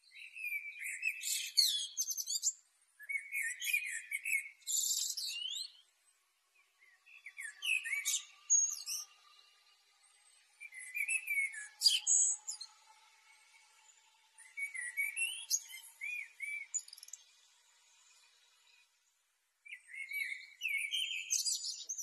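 Male common blackbird singing six phrases, with pauses between them. Each phrase is a low fluting warble that ends in a high, squeaky twitter.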